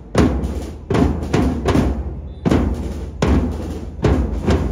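Marching-band drums playing a parade beat: a drum struck with felt mallets and a bass drum, with a strong accented stroke about every 0.8 s and quicker strokes in between.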